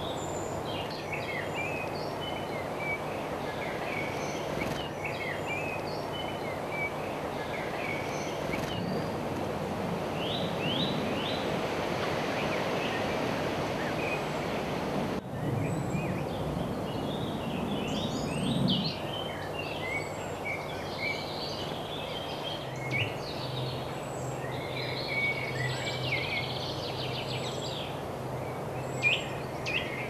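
Woodland birds chirping and singing in many short, quick notes, busier in the second half, over a steady background rumble. A low hum comes up and grows stronger in the last several seconds.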